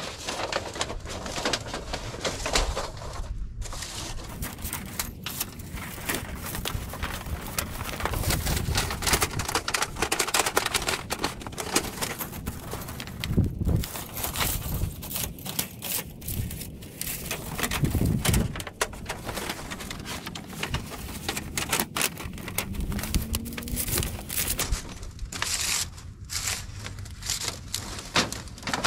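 Thin titanium sheet of a new roll-up stove chimney pipe being handled and rolled into a tube: a dense run of irregular metallic crinkles and clicks.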